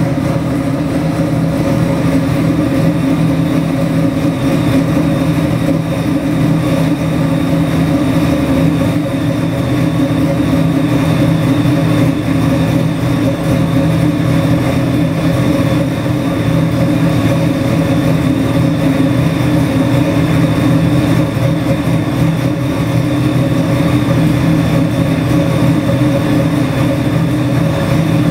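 ProCharged Ford 427 Windsor small-block V8 crate engine with electronic fuel injection, idling steadily at about 950 rpm on an engine dyno.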